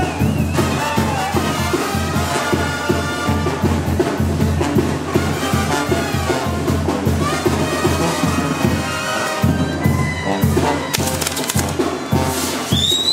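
Band music with brass and a steady drum beat. Near the end, fireworks crackle and a whistling firework shrieks up in pitch, then slowly falls.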